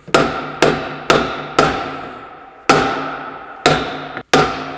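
Hammer blows on a Kitfox's propeller hub, seven sharp strikes that each ring and fade: four quick ones about half a second apart, then three slower. The propeller does not budge, because it is held by bolts threaded into the hub.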